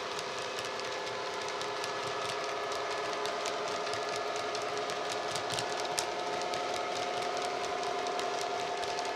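ESU LokSound DCC decoder in a model Class 66 playing its free Class 66 sound file through the locomotive's small speaker: a recorded EMD two-stroke diesel engine held at a steady note. The light, irregular ticking of the model wagons' wheels running over the track is heard with it.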